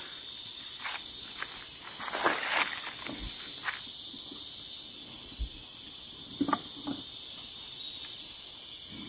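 Steady night chorus of crickets and other insects, a continuous high trill, with scattered short knocks and crackles through it.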